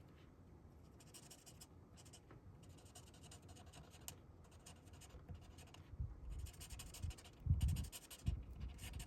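Colourless blender marker rubbed over paper in repeated short strokes, a soft scratchy hiss. A few low bumps come in the second half.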